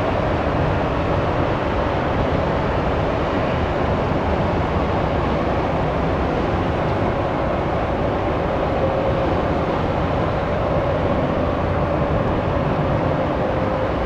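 Boeing 777-300ER's GE90 jet engines running, a steady, even noise with a faint held hum.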